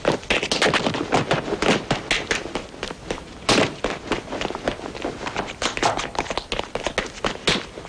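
A rapid, irregular run of taps, knocks and thuds, several a second, with a heavier knock about three and a half seconds in.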